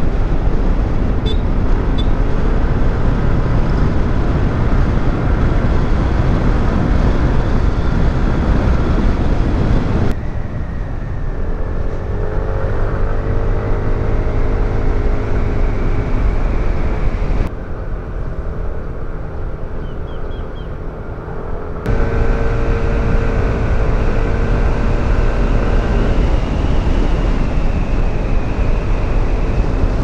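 Yamaha NMAX scooter cruising at about 60–70 km/h on a wet road: wind rushing over the rider's microphone, over the steady drone of its single-cylinder engine and tyre noise. The sound changes abruptly a few times and is quieter between about ten and twenty-two seconds in, where the engine's hum stands out more.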